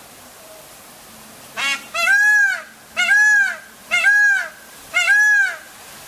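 Rose-ringed parakeet calling: a short rattly note, then four loud calls about a second apart, each rising then falling in pitch. A steady hiss of rain runs underneath.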